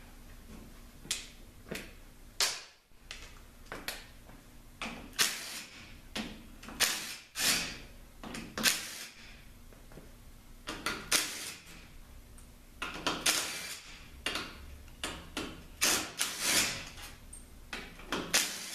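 3/8-inch 20-volt cordless impact gun with a T25 Torx bit run in many short trigger pulls, spinning out the valve body bolts of a 48RE transmission.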